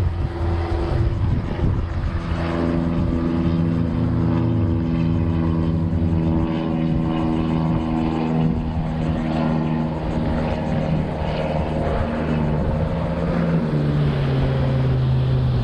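Bow-mounted electric trolling motor running, a steady pitched hum that steps to a new pitch a few times as its speed setting is changed.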